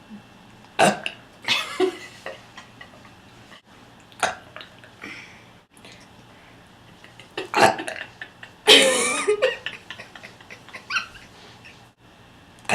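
A girl burping several times, gas brought up from cola she chugged quickly. The burps are short, with the longest and loudest, about a second long, near nine seconds in.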